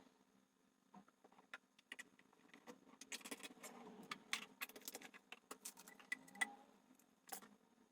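Quiet, irregular small clicks, taps and rattles of plastic ink bottles and caps being handled while refill bottles are filled with sublimation ink.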